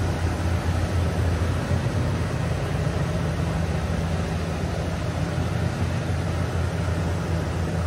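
1994 Ford F250 pickup's engine idling steadily, a constant low hum with no revving.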